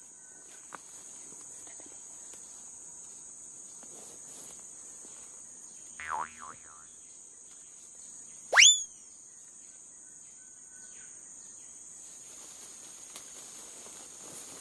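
Steady, high-pitched drone of insects in the undergrowth. About eight and a half seconds in, a loud, short whistle sweeps sharply upward, and a shorter wavering call sounds about six seconds in.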